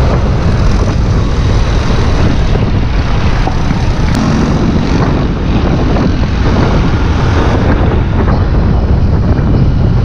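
Motorcycle engine running at road speed, with steady wind and road rush on the onboard camera's microphone.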